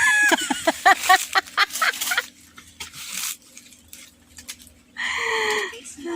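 Chickens clucking: a run of quick repeated calls for about two seconds, then after a lull a single longer call that falls slightly in pitch, about five seconds in.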